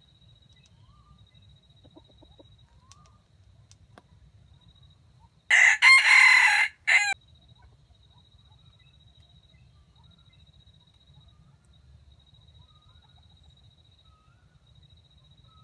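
Red junglefowl rooster crowing once, a single loud crow of under two seconds about five and a half seconds in, broken into a few segments and cut off sharply.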